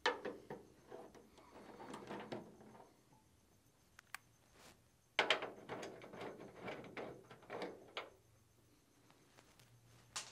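Knocks, scrapes and rustles of hands and arms working inside a car's front fender against the steel body, in two bursts of a few seconds each, with a sharp click about four seconds in and another near the end.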